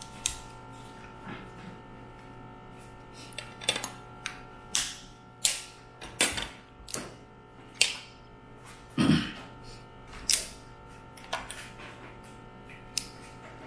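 Boiled mud crab being cracked and eaten close to the microphone: a dozen or so irregular sharp cracks and clicks of shell, with a few longer mouth sounds of eating.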